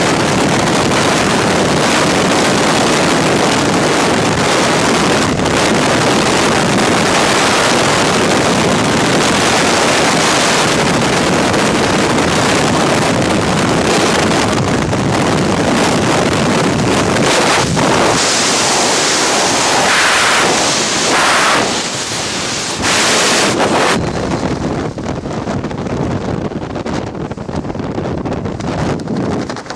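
Loud, steady rush of freefall wind on a skydiver's helmet-camera microphone. About three-quarters of the way through the parachute opens and the rush drops to a quieter, uneven wind under the canopy.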